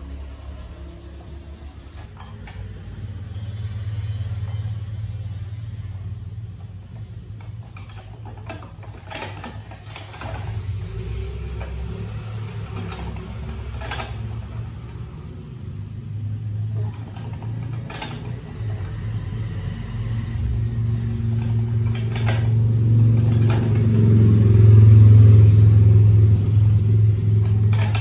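Hand-cranked jeweller's rolling mill being turned, its gears and steel rollers giving scattered clicks and knocks over a steady low rumble that grows louder toward the end.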